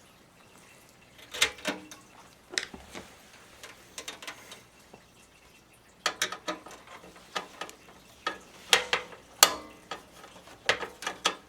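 Irregular sharp metallic clicks and ticks of a screwdriver working the last screw off a computer motherboard, in scattered clusters with a pause in the middle.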